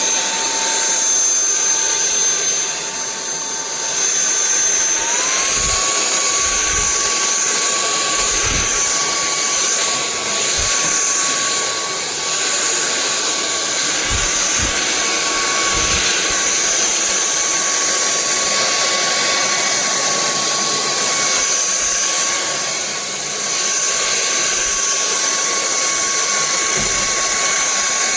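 Sulean X8 cordless stick vacuum running: a steady high motor whine over rushing airflow hiss, its pitch rising a step about five seconds in, with a few dull low knocks along the way.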